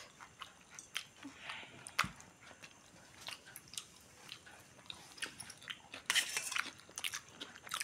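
A person chewing a mouthful of noodles close to the microphone, with scattered light clicks and a brief louder scraping sound about six seconds in.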